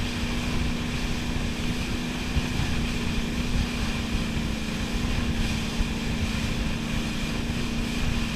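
Wakeboard boat's engine running steadily under way, a steady hum, over the rush of the wake and rumbling wind on the microphone.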